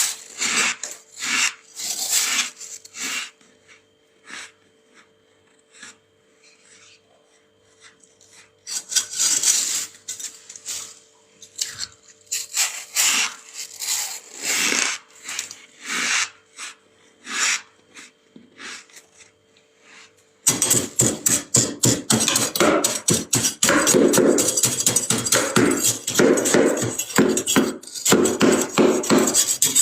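Frost being scraped off the inside of a freezer. At first the scrapes come one by one with pauses between them; about two-thirds of the way in they turn into rapid, continuous scraping.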